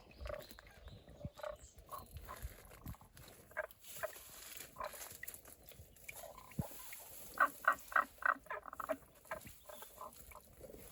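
Frog calling from a rock-crevice spring: short rolling 'korokoro' notes, scattered at first, then a quick run of about five a second just past the middle.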